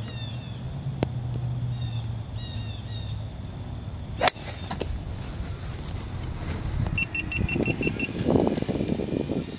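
A golf iron strikes a ball off the fairway turf with one sharp crack about four seconds in. Near the end, an electric golf cart pulls away with a rumble.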